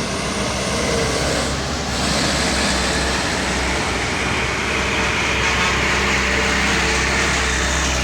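Heavy truck engine running hard at full throttle, a steady low drone under loud road and engine noise.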